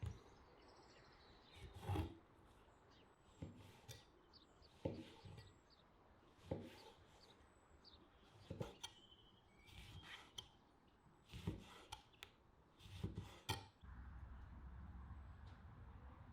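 Knife work on a wooden cutting board: irregular short scraping and cutting strokes, about one every second or so. Near the end a low steady hum sets in.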